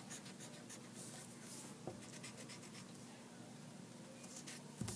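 Faint scratching of a pencil writing on paper in short strokes, most of them in the first two seconds.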